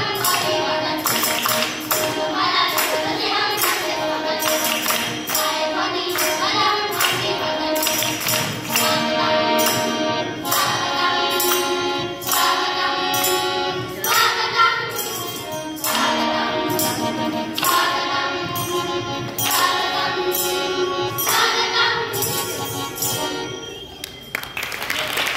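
A group of children singing a song together, accompanied by a harmonium and a steady jingling percussion beat.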